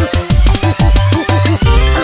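Background music with a heavy electronic beat and deep bass, about two beats a second.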